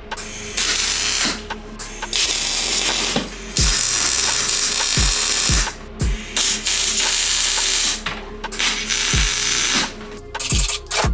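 MIG welder arc on steel, crackling and hissing in several bursts, each a second or two long and cut off sharply as the trigger is released. Background music with a deep beat runs under it.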